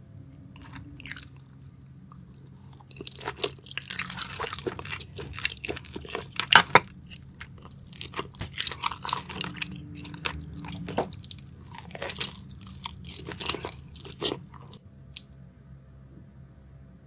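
Close-miked mouth sounds of a person biting into and chewing spicy sauced seafood, a run of sharp clicks and wet smacks. It starts about three seconds in and stops a couple of seconds before the end.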